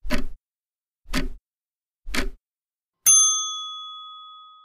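Clock-tick sound effect, three ticks one second apart, then a single bell ding about three seconds in that rings and fades away, marking the end of the time to answer a trivia question.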